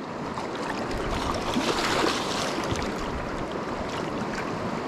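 Shallow river water running over a gravel riffle, a steady rushing that swells a little louder about two seconds in.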